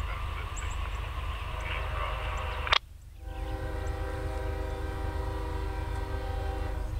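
A freight locomotive's air horn sounding one long, steady multi-note blast, starting about three seconds in just after a sharp click, over a steady low rumble.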